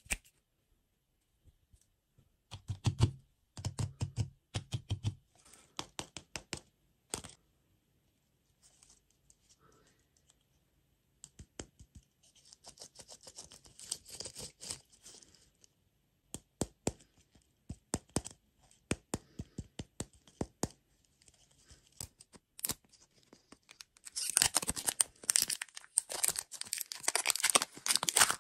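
Sweets and their packaging being handled: scattered taps and clicks with stretches of crinkling and tearing, which turn into loud, continuous crinkling near the end.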